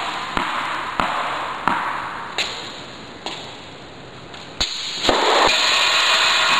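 Tennis balls bouncing on an indoor court and struck by a racket: a series of sharp knocks at uneven intervals, with a steady hiss coming in about five seconds in.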